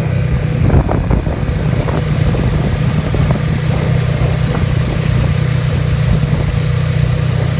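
Car engine and road noise while driving, a steady low drone with a few faint knocks about a second in.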